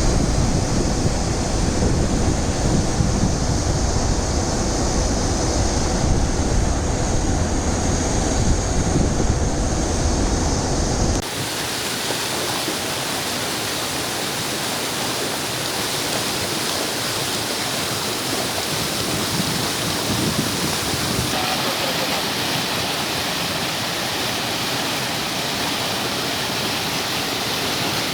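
Rushing Godavari floodwater, heard at first under heavy wind rumble on the microphone. About eleven seconds in it cuts abruptly to a steady rushing hiss of water.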